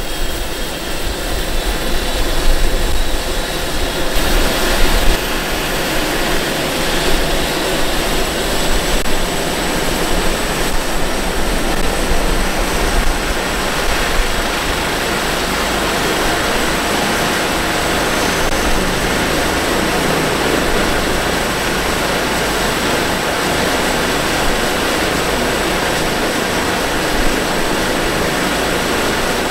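Airbus EC135 T2+ helicopter on the ground during start-up: its twin Turbomeca Arrius turboshafts whine steadily over the rush of the main rotor and Fenestron as the rotor runs up to speed. A faint high whine climbs over the first few seconds and then holds.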